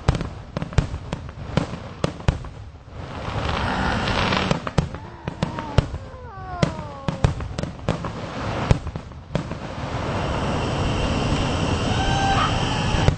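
Aerial fireworks going off in a rapid string of bangs and pops. Falling whistles come about seven seconds in, and there are long stretches of crackling about four seconds in and from about ten seconds on.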